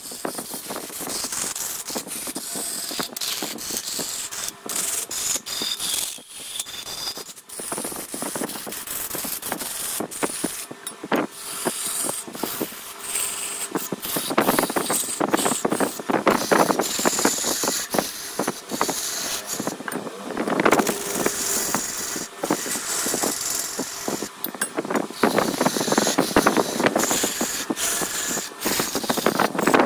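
Wood lathe spinning while a hand-held turning tool cuts into the wood: a steady scraping full of rapid clicks and rattles, growing louder and denser in stretches as the tool bites harder.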